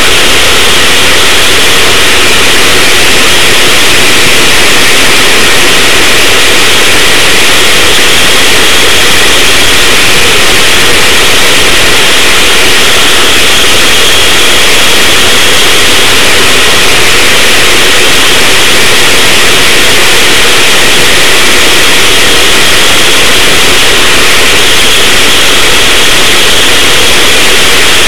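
Racing go-kart's small engine running at speed, heard from on board the kart, very loud and steady with a strong hiss of wind and noise over it.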